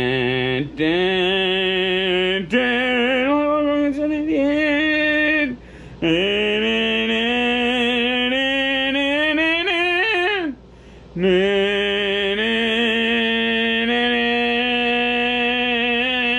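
A man singing a wordless tune in three long phrases of held notes, the middle phrase sliding steadily upward in pitch before breaking off.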